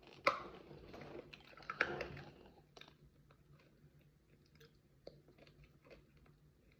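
A person crunching and chewing small hard candies: sharp crunches at the start and around two seconds in, then fainter chewing.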